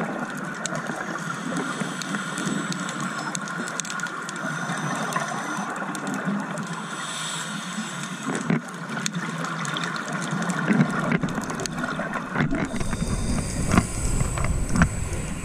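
Steady underwater water noise, a gurgling hiss with a faint steady tone in it; from about two-thirds of the way in, low rumbling and scattered knocks join it.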